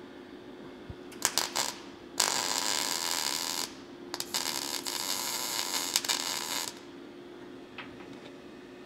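Kemppi MIG welder arc crackling as it stitches thin sheet-steel gutter: a few short sputters about a second in, then two welding runs, one of about a second and a half and one of about two and a half seconds.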